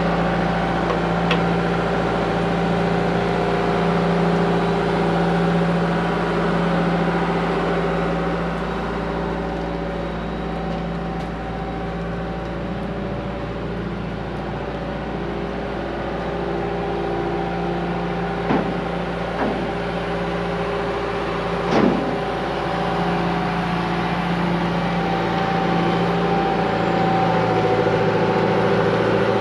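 Heavy equipment's diesel engine running steadily while lifting a dragline boom section, with three short squeaks in the last third.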